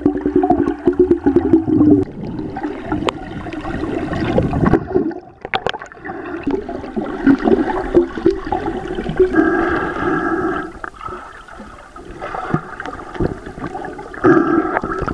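Water gurgling and rushing around a camera held underwater while snorkelling.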